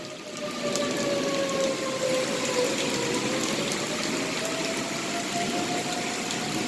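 Outdoor tornado warning siren wailing, its single tone slowly sinking in pitch and then climbing back up, over the steady hiss of rain.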